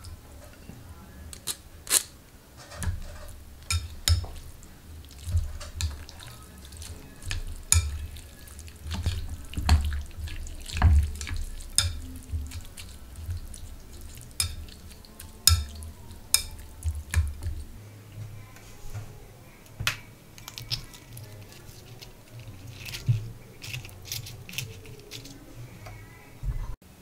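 Wooden chopsticks tossing and stirring Indomie noodles in a ceramic bowl of spicy broth. Irregular sharp clicks and taps of the chopsticks against the bowl come a few times a second, with wet noodle-and-broth sounds between them.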